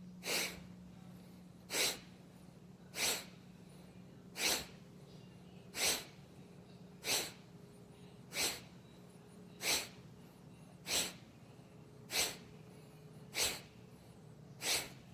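Bhastrika pranayama breathing: twelve forceful, sharp exhalations through the nose, evenly spaced about one every 1.3 seconds, with the inhalations between them barely heard.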